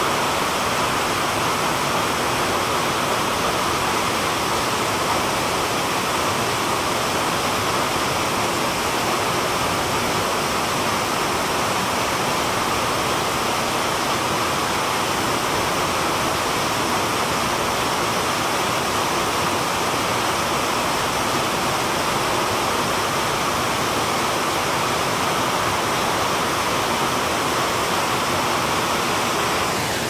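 Waterfall pouring over a rock ledge into a plunge pool: a steady, unbroken rush of falling water.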